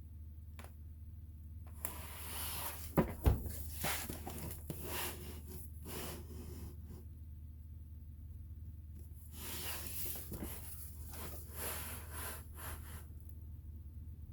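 A cardboard product box being handled: rustling and scraping in two stretches, with two sharp knocks about three seconds in.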